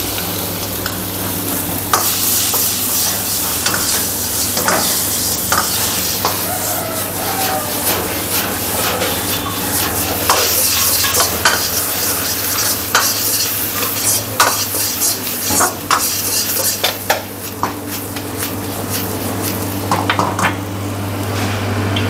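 Chopped onions sizzling in hot oil in a steel wok, stirred with a metal ladle that scrapes and clinks against the pan many times, over a steady low hum.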